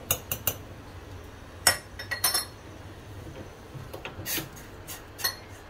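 A metal teaspoon clinking against a steel jar and a ceramic mug as powdered sugar is spooned into the mug: several sharp, scattered clinks, the loudest about a second and a half in.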